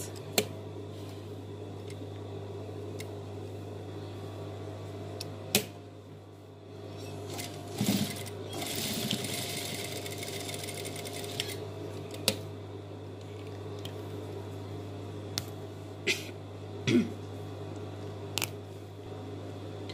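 Industrial sewing machine running as a seam is stitched through dress fabric: a steady motor hum throughout, a few seconds of busier stitching noise near the middle, and scattered short clicks and knocks of the machine and fabric handling.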